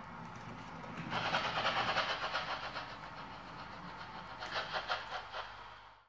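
Model steam locomotive running along layout track toward and past the microphone, a steady running sound with a rhythmic beat that grows louder about a second in and cuts off near the end.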